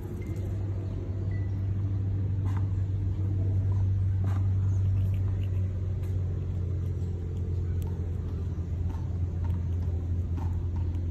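A steady low mechanical rumble, like a running motor or nearby traffic, with a few faint clicks.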